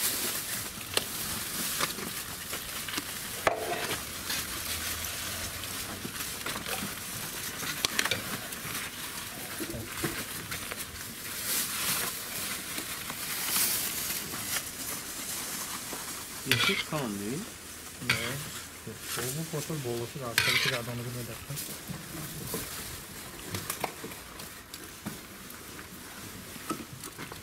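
Plov being scooped and stirred in a large kazan: a steady sizzling hiss with scattered clicks and scrapes of the ladle and foil containers. Faint voices come in around the middle.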